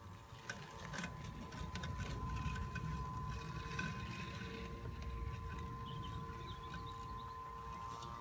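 Husqvarna Automower robotic lawnmower running across grass: a quiet, steady electric motor whine over a low rumble, slightly louder from about a second in.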